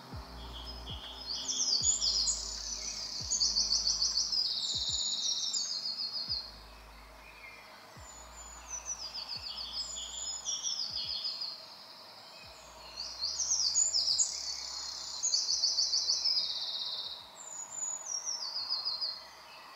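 A small songbird singing in woodland: bouts of high, rapid trills a few seconds long, repeated four or five times with short pauses between.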